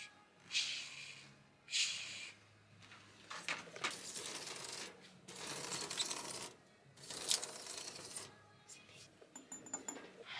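Close-up handling sounds: two short rustles of a fabric bag being rubbed, then a few seconds of fingers scratching and rubbing along a woven wicker basket, and near the end a few light clicks of plastic measuring cups being tapped.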